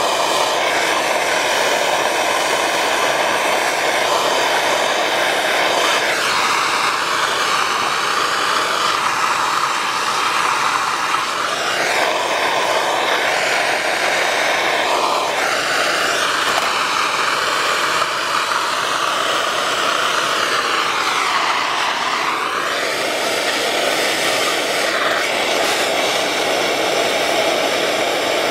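Propane torch flame burning with a steady rushing hiss while it heats copper pipe and fittings for soldering; the tone of the rush shifts slowly up and down.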